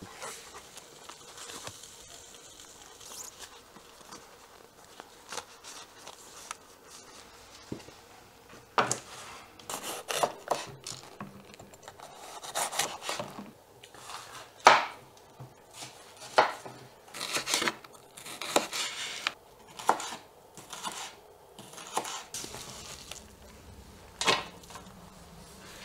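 Chef's knife cutting vegetables on a wooden cutting board: an irregular run of sharp knocks, starting about a third of the way in, with clinks of a metal tray.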